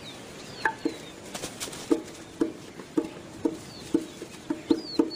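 Animal calls: a regular series of short, low clucking calls, about two a second and a little quicker near the end, with a few high, falling bird chirps over them.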